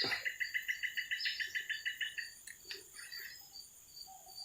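A fast, even run of chirps, about eight a second, that stops a little past two seconds in, over a steady high-pitched insect drone. A short knock comes right at the start.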